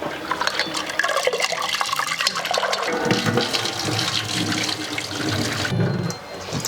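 Water running and splashing in a vessel as toor dal is washed.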